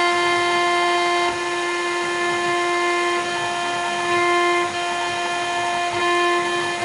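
CNC router spindle whining at a steady pitch while its bit carves a rotating acrylic cylinder, with the hiss of the cut underneath. The loudness dips slightly a few times as the cut changes.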